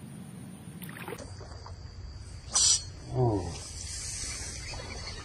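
A short, loud splash-like rush about two and a half seconds in as a snakehead strikes the soft frog lure and is hooked, followed by a brief falling vocal sound.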